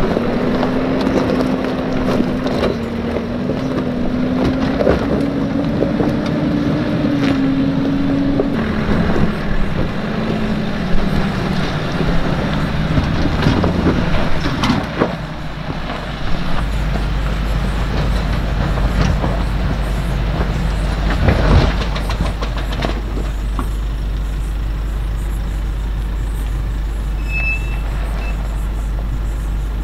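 Nissan Navara NP300 ute's engine pulling up a steep rocky track, its note wavering up and down with the throttle, with stones clicking and knocking under the tyres. The engine fades away after about fifteen seconds as the ute climbs off, leaving a steady deep rumble.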